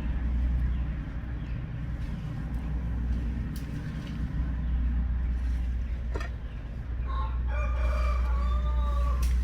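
A rooster crows once, a call of about two seconds beginning about seven seconds in, over a steady low rumble. A single sharp click comes just before it.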